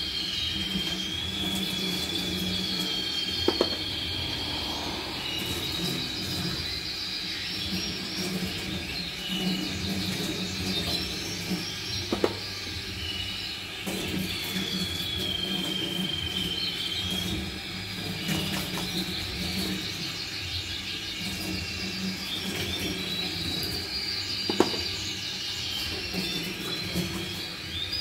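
Tap water running into a steel sink while plastic canary drinkers are rinsed and scrubbed, with three sharp knocks of plastic against the sink. Over it, canaries sing in long, wavering high trills that come and go.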